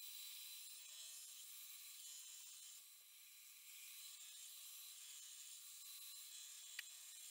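Hobby bandsaw cutting 12 mm aluminium plate, heard faintly as a steady high hiss with thin whining tones. The sound dips briefly about three seconds in, and there is a single sharp click near the end.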